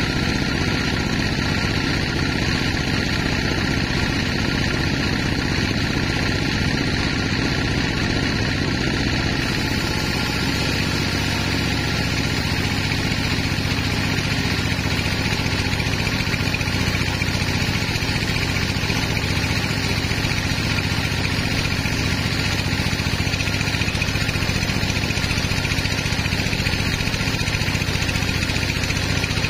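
Large band sawmill running steadily, its blade sawing lengthwise through a big log as the carriage feeds it past: a constant machine drone with several held tones.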